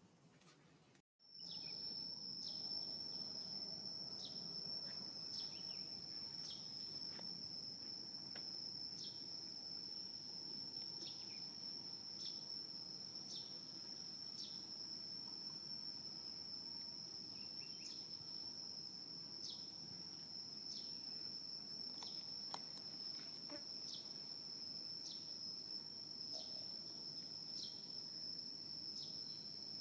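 Insects singing on one steady high note, starting about a second in, with a short falling chirp repeating about once a second over faint outdoor background noise.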